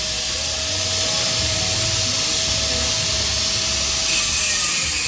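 Power tool working on a motorcycle exhaust pipe during its rework: a steady hiss with a faint whine that fades out about four seconds in.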